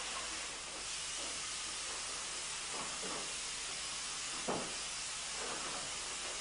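Steady hiss with a low hum underneath and a few faint knocks, the clearest about four and a half seconds in.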